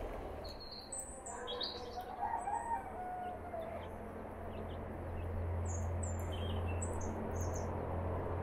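Small birds chirping in short high calls, with a domestic chicken calling once about two seconds in. A low steady rumble grows louder about halfway through.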